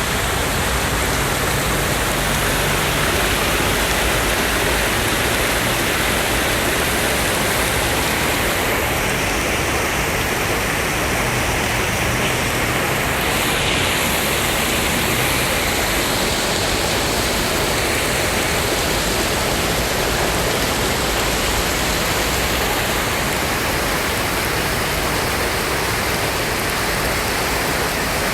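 Heavy rain falling steadily, a dense, even rush of noise with no breaks.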